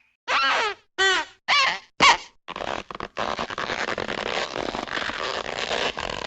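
Cartoon sound effects: four short pitched honks that bend down in pitch, about half a second apart, followed by a steady rough rattling noise lasting about four seconds.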